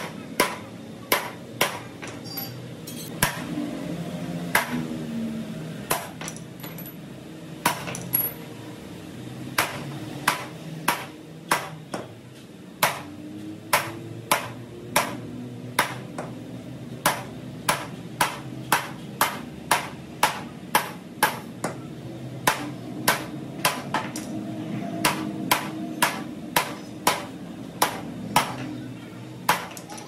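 Hammer blows on a chisel cutting an opening through thin steel sheet, each a sharp metallic strike with a short ring. They come in runs of about two a second, broken by short pauses.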